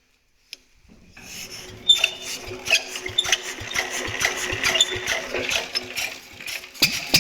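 Lister D single-cylinder stationary engine starting from cold: it catches about two seconds in and runs on with a steady, fairly rapid knocking beat.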